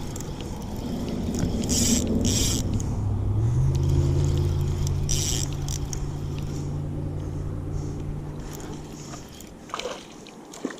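A passing engine hums low and steady, rising slightly in pitch about three and a half seconds in, then fading away near the end. Short scraping, rustling noises come and go over it.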